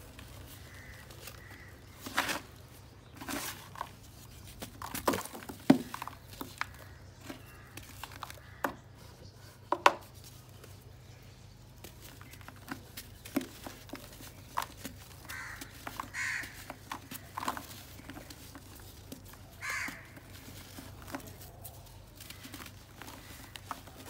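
Dry lumps of clay soil crushed by hand in a plastic tub: irregular crunching and crumbling, with a few sharp cracks as lumps snap, and grit and dust pattering into the tub.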